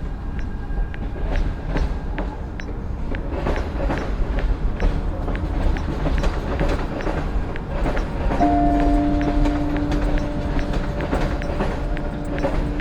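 Train rolling past with a heavy rumble and repeated clacking of wheels over rail joints. About two-thirds of the way through, its horn sounds one long, steady blast.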